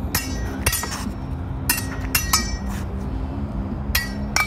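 Steel practice swords clashing, blade on blade and on a frying pan used as a buckler: sharp metallic clinks, each with a brief ring. They come in quick clusters: about three near the start, three around two seconds in and two near the end.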